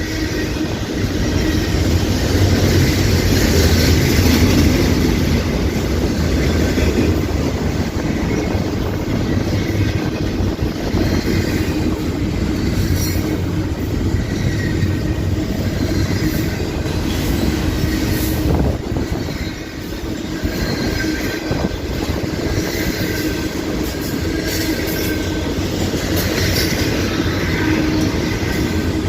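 A train rolling past: steel wheels running on the rails with a steady rumble and scattered clicks over rail joints, briefly easing a little past the middle.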